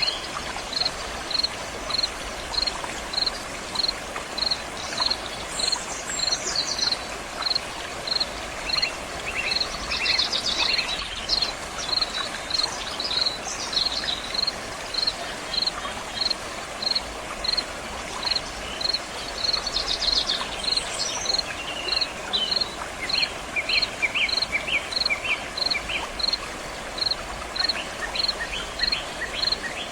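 Water flowing steadily, with an insect chirping at a high pitch in an even rhythm of about three chirps every two seconds, and birds calling now and then with short sweeping notes and quick trills.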